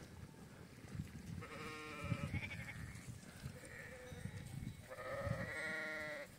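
Sheep bleating twice, each a quavering call: a shorter one about a second and a half in and a longer, louder one near the end. Low thuds sound in between.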